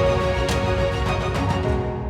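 Music with steady sustained tones and sharp percussive hits, the strongest about half a second in.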